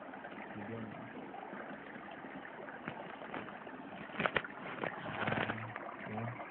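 Stream water running steadily over rocks, with sharp splashes in the shallow water about four seconds in and another burst of splashing a second later as hands grab in the pool.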